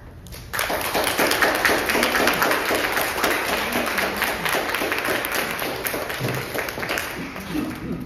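Applause with many hands clapping, breaking out suddenly about half a second in and easing off near the end.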